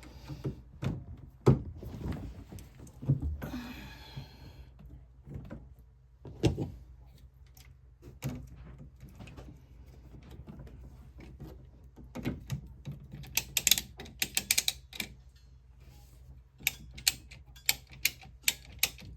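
Sharp clicks and knocks of plumbing clamps and tools being worked onto a water supply pipe by hand, with a short scraping hiss about four seconds in and quick runs of clicks near the end.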